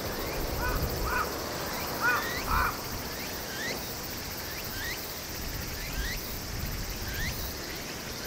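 Birds calling. There are a few short hoarse calls in the first three seconds, then a string of quick rising chirps about once a second, over a steady low background hiss.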